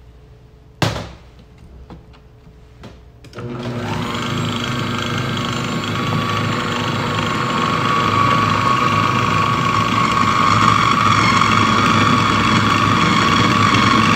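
A sharp knock about a second in. A few seconds in, a food processor's motor starts and runs steadily with a whine, blending almond powder and powdered sugar into marzipan paste as rose water is poured in through the feed tube.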